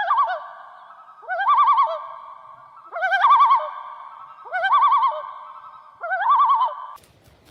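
A bird calling in five repeated phrases about a second and a half apart, each a quick upward sweep running into a wavering, warbling trill.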